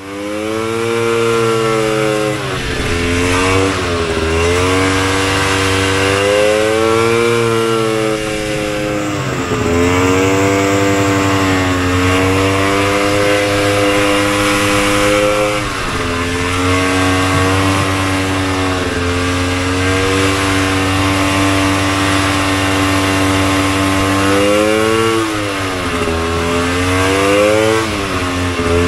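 Single-cylinder two-stroke engine of a 1972 Polaris Colt 250 race snowmobile on test runs, its pitch climbing and dropping several times as the throttle is opened and eased off. At this stage it is running but, in the owner's words, it wasn't great, before the carburettor's pilot and main jets were retuned.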